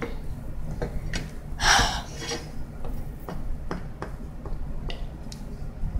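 Wooden styluses tapping and scraping on cards laid on a glass tabletop: a scattered series of short clicks and taps, with one louder noisy scrape of about half a second near two seconds in.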